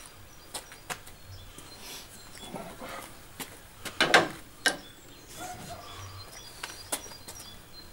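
Chainsaw being pull-started without catching: one short, loud rasp of the starter cord about four seconds in, among scattered clicks and knocks. Birds chirp faintly in the background.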